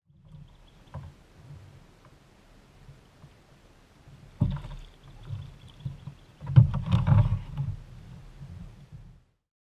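Knocks and bumps through the hull of a fishing kayak as the seated angler shifts and handles gear, over a low rumble. One sharp thump comes about four and a half seconds in, and a cluster of louder bumps follows a couple of seconds later.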